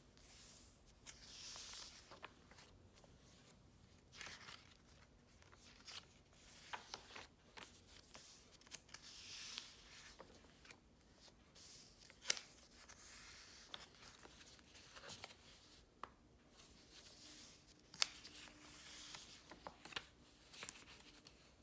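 Pages of a paper journal turned by hand: faint swishes of paper several times, with sharp taps as the pages settle.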